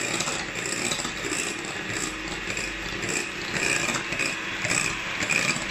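Electric hand mixer running at full speed, its beaters whipping a cream mixture in a glass bowl: a steady whir with an uneven rattle.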